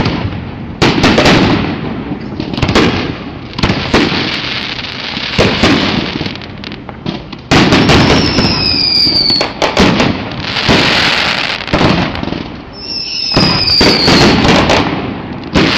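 Fireworks display going off: a continuous run of shell bursts and crackling, with two high whistles that fall slightly in pitch, about halfway through and again near the end.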